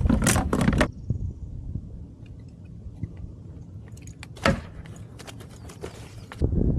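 Knocks and rattles of a just-caught bass being landed and handled in a kayak: a burst of rattling knocks, then a quieter stretch with one sharp knock about halfway and a few light clicks, and more knocking near the end.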